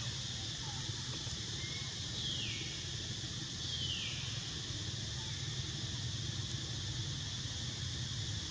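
Outdoor ambience: a steady high drone of insects over a low rumble. About two and three and a half seconds in, two short falling whistle-like calls slide down in pitch.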